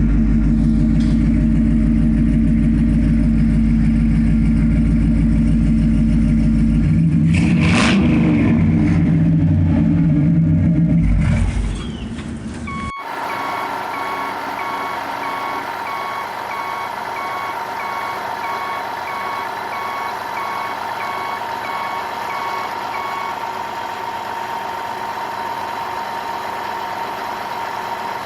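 Heavy-vehicle engine running with a loud low rumble. About thirteen seconds in, it cuts to a quieter engine drone with a reversing alarm beeping in a steady series, which stops about ten seconds later.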